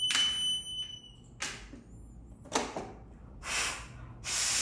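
Electronic fire alarm sounder giving a steady high-pitched tone, set off by a smoke detector. The tone cuts off about a second in and is followed by four short bursts of hiss, each under half a second.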